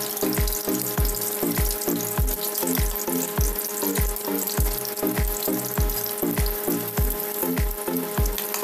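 Chicken egg frying in hot oil in a steel wok, a steady sizzle, worked with a metal spatula. Background music with a steady thumping beat plays over it.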